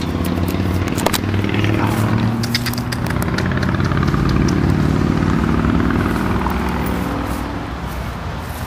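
A motor vehicle engine running nearby, growing louder to about the middle and then fading, with a few sharp clicks near the start.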